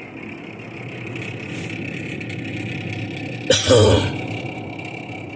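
Failing evaporator fan in a GE top-mount refrigerator running noisily: a steady drone with a high whine over a low rumble, the sign of the fan going bad. A short, loud burst of noise cuts across it a little past halfway.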